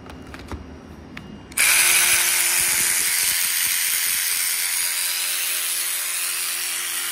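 Matco Tools 12-volt cordless power ratchet running free in the air, its motor and head whirring steadily. It starts suddenly about one and a half seconds in, after a few light handling clicks. It is running on a 16-volt battery pack rewired to 12 volts.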